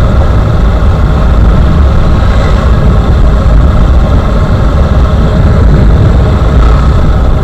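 Steady noise of riding a motorcycle, recorded on an action camera's built-in microphone without an external mic: heavy wind rumble over the running engine. It stops abruptly at the end.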